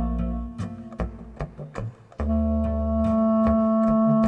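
Live chamber music for cello, clarinet and contrabass clarinet: a held note over a low bass line breaks off into about two seconds of short, detached notes, then a held note and low bass return.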